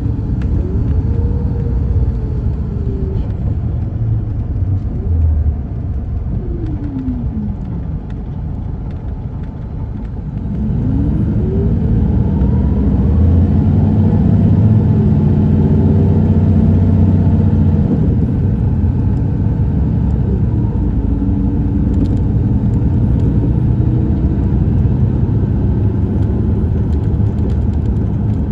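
Cabin of a 2015 MCI D4505 coach under way: its Cummins ISX12 diesel drones under road noise. The engine eases off about a third of the way in, then pulls harder and louder from about ten seconds in, its pitch rising as the Allison B500 automatic works through the gears.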